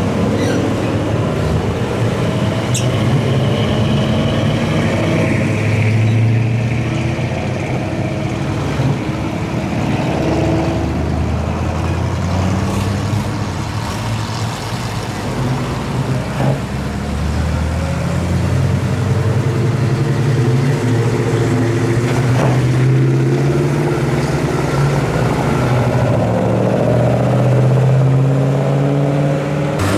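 Classic cars and pickup trucks driving past one after another, their engines running continuously and rising and falling in pitch as each one passes and pulls away.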